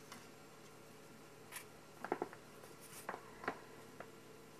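Faint, irregular taps, clicks and scuffs of kittens' paws and claws on the floor and toy as they play-fight, with a cluster of sharper clicks about two seconds in and a few more after three seconds.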